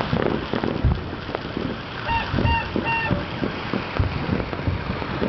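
Fireworks and firecrackers popping and crackling across the city in a dense, irregular patter of pops. About two seconds in come three short toots, each holding one pitch.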